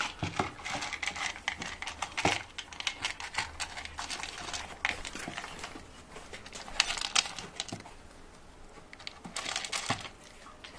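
Cat eating its food: irregular crunching with small clicks and crackles.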